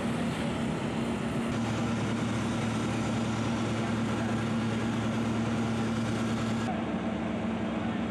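Engine running steadily, a constant low hum under a broad hiss, with a deeper hum joining for a few seconds in the middle.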